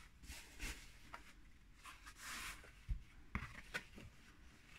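Faint rustling and rubbing of denim fabric being handled against a cardboard box, with a few soft knocks in the second half.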